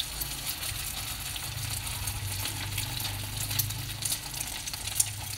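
Potato-and-chicken kabab shallow-frying in hot oil in a pan: a steady sizzle dense with small crackles and pops, over a low hum. One sharper pop comes near the end.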